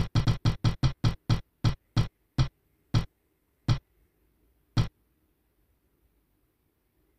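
Ticking of a spinning name-picker wheel app. The ticks come quickly at first, then spread further and further apart as the wheel slows, and stop about five seconds in.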